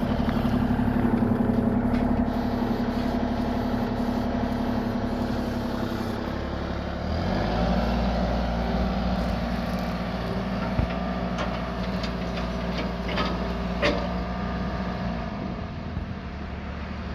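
Kubota U35-4 mini excavator's diesel engine running steadily. Its note shifts up slightly about seven seconds in, and a few light clicks come near the middle.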